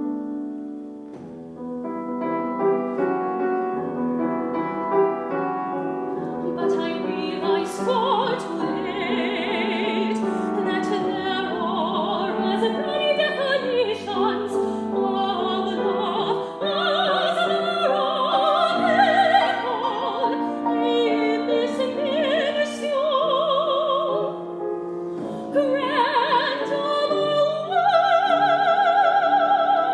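Soprano singing with strong vibrato over piano accompaniment in a classical art song; piano alone at first, the voice entering about seven seconds in and rising to loud high held notes near the end.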